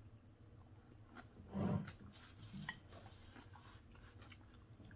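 Faint chewing of a mouthful of raw zucchini noodles, with small scattered clicks and one brief louder sound about one and a half seconds in.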